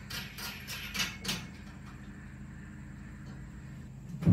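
Bolt on a steel truck-bed lift bracket being tightened with a wrench, giving short regular clicks about three a second that stop a little over a second in. A steady low hum follows, and a loud knock comes at the very end.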